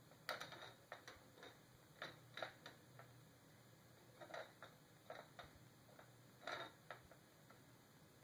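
Soft, irregular clicks and taps as a cat paws a three-armed plastic spinner across a wooden floor, a dozen or so scattered over the stretch, some in quick pairs.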